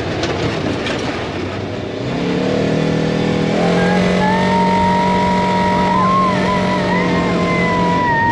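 Side-by-side utility vehicle being driven: at first mostly a rushing noise, then about two seconds in the engine picks up speed and settles into a steady drone with a thin, slightly wavering whine on top.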